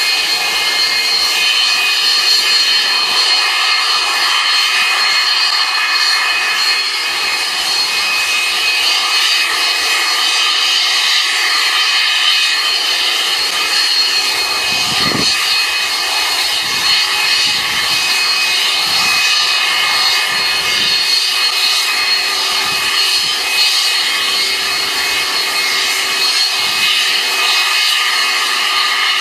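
Jet-engine snow blower on a subway work train blasting snow off the tracks: a steady, loud roar with a faint high whine.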